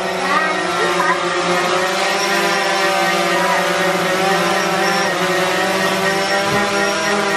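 DJI Phantom 4 Pro quadcopter's propellers and motors giving a steady buzzing hum while it hovers, holding a nearly even pitch. A child's voice comes in briefly about a second in.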